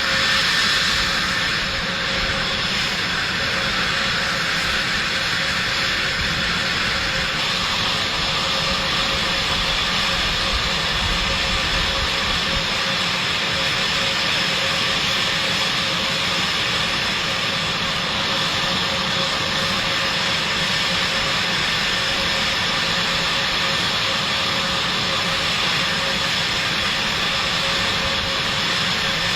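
Jet engine running steadily: a continuous loud rush of noise with several steady high whining tones over it.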